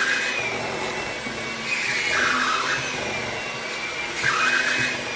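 Electric hand mixer running, its beaters whirring through thick pound-cake batter in a glass bowl, the sound swelling about every two seconds as the beaters move around the bowl.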